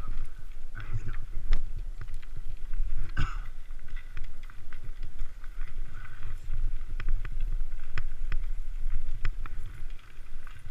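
Mountain bike rolling over a dirt and gravel path: a steady rumble of wind on the microphone, with tyre crunch and scattered sharp clicks and rattles from the bike.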